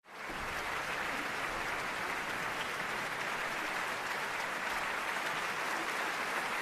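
Concert-hall audience applauding, a steady, even wash of clapping that swells in during the first moment and holds level throughout.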